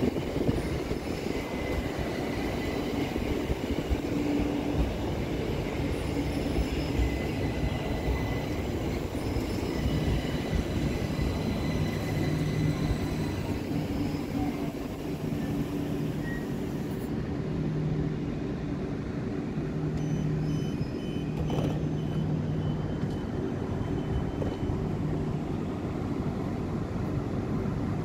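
Southern Class 377 Electrostar electric multiple unit at the platform, giving a steady low hum and rumble from its onboard equipment. Faint high whines in the first half fade away.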